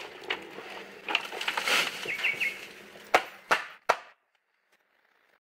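Dry leaf litter rustling and crackling as it is gathered up by hand into a plastic container. Three sharp knocks come about three to four seconds in, then the sound cuts off suddenly.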